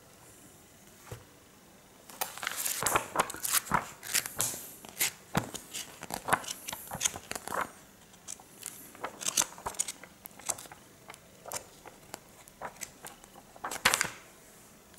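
Pages of a glossy comic book being flipped and turned by hand: quick papery flicks and rustles, coming thick and fast for several seconds, then slower single page turns with one louder flick near the end.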